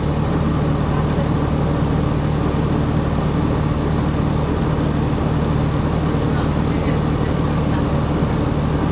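The diesel engine of a New Flyer XD60 articulated city bus runs steadily, a low even drone heard from inside the passenger cabin.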